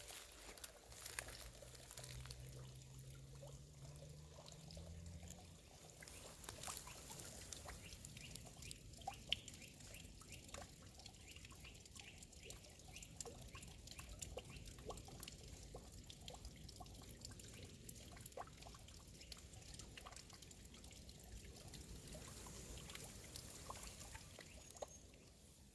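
Faint water from a spring fountain's spout pouring and trickling steadily, with scattered small clicks. A low hum rises slowly in pitch during the first five seconds.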